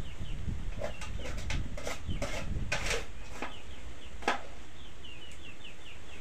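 Birds chirping in short, repeated, falling chirps, over scrapes and knocks of a plastic scoop against a bowl and a pot; a sharp knock comes a little after four seconds in.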